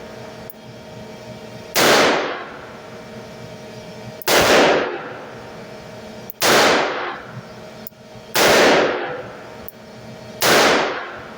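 Chiappa Rhino 60DS revolver firing five shots one-handed, evenly spaced about two seconds apart, each with a short trailing echo. The cylinder is loaded with a mix of .357 Magnum and .38 Special rounds.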